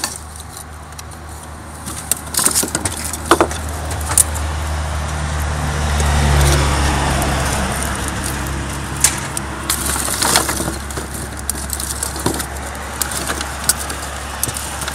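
A low rumble swells to a peak about halfway through and then fades, with a hiss riding on it. Scattered clicks and crinkles come from a paper-and-foil packet being handled close by.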